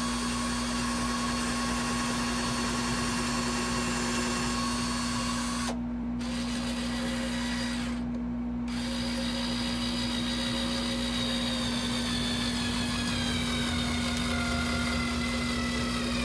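Power drill running while pre-drilling pilot holes and driving screws into wood. Its motor whine cuts out twice briefly, then sinks slowly in pitch over the last few seconds as the bit works into the wood.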